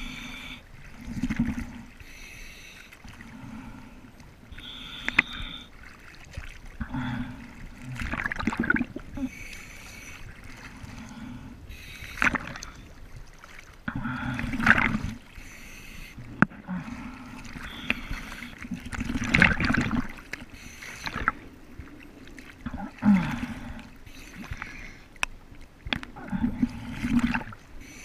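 Sea water sloshing and splashing against an action camera at the ocean surface, with the lens dipping in and out of small waves, in uneven surges every second or two.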